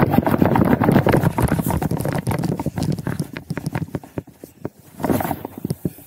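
Close rustling, scuffing and clicking as someone clambers down a dry, grassy rock bank with the camera on his body. The noise is dense at first, thins to scattered clicks after about three seconds, and has a short louder scuff about five seconds in.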